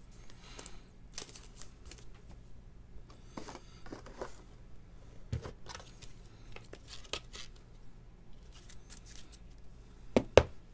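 Handling noise from a trading card and its clear plastic sleeve: scattered soft rustles, crinkles and scrapes of plastic and card. Two sharp taps close together near the end are the loudest sounds.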